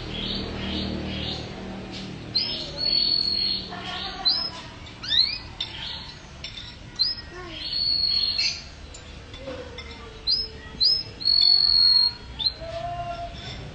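Songbirds chirping and whistling: quick runs of short upward-sweeping chirps, broken by a few held high whistles of about half a second each, with some lower sliding notes.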